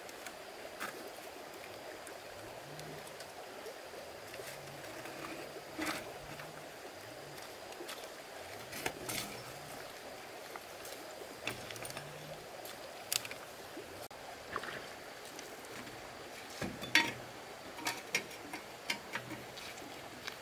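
Steady running water with scattered short, sharp splashes and clicks, the loudest about three quarters of the way through.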